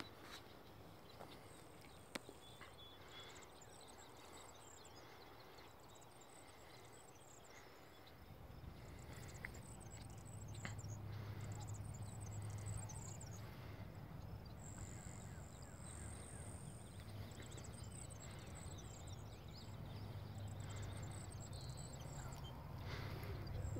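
Insects calling in repeated short, high-pitched, pulsed trills. A low steady rumble comes in about a third of the way through.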